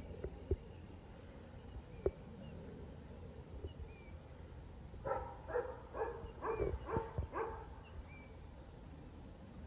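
Dutch Shepherd dog barking, a quick run of about six short barks about halfway through, over a steady high insect buzz. A few sharp knocks come in the first couple of seconds.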